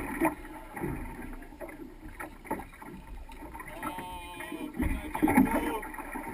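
Wind and water noise on the deck of a fishing boat at sea, with scattered knocks from heavy jigging rods and spinning reels being worked, and a short voice-like sound about four seconds in.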